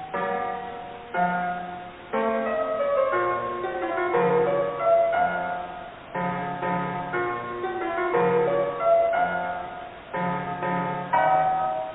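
Piano music: chords struck about once a second, each dying away, with a melody moving above them.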